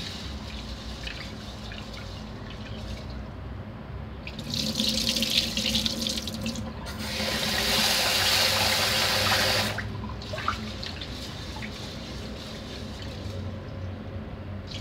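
Rice being washed in a rice-cooker pot at a kitchen sink: quiet sloshing as a hand swishes the grains in the water, then a faucet running into the pot from about four seconds in for about six seconds, then quieter sloshing again.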